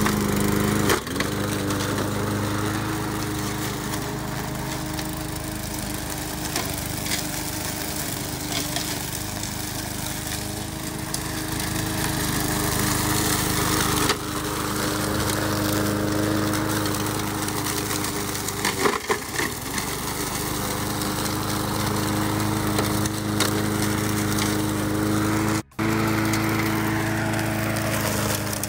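Gasoline walk-behind push lawn mower engine running steadily under load while mowing. The sound cuts out for a moment near the end.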